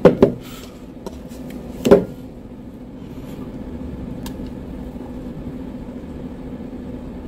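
Plastic blender jar knocking as it is lifted off its motor base, with a second knock about two seconds in, then thick blended fruit juice being poured into a plastic cup, quiet under a low steady hum.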